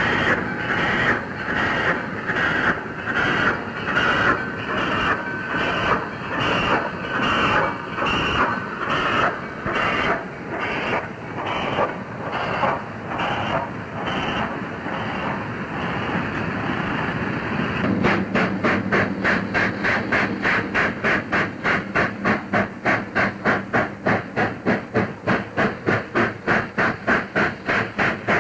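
Steam freight train passing: a Texas-type (2-10-4) steam locomotive working a regular exhaust beat of about one chuff a second, mixed with the clatter of the freight cars. About two-thirds through, the sound cuts to a faster, even beat of about two a second over a low steady hum.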